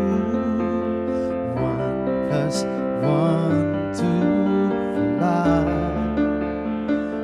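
Live band playing a slow pop ballad, led by keyboard piano chords over a bass line, with a male voice singing over it.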